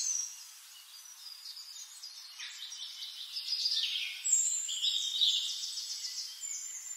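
High-pitched chirping and rapid trills of small birds, growing busier and louder about three seconds in.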